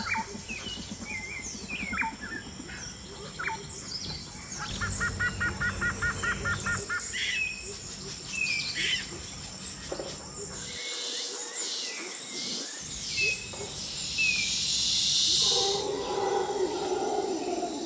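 Many birds chirping and whistling, including a quick run of about ten repeated notes, over a steady high tone, with a lower call near the end.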